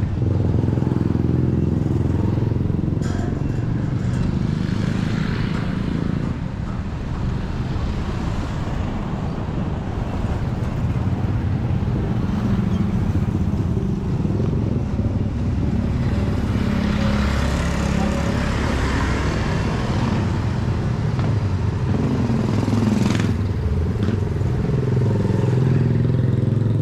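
A small vehicle engine running steadily, its pitch sliding up and down briefly about 22 seconds in, amid busy street noise.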